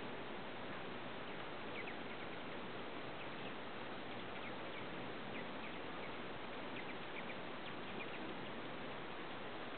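Hummingbirds squabbling: short high chip calls in quick little clusters, several times, over a steady hiss of background noise. These are the chase calls of birds fighting over the feeder.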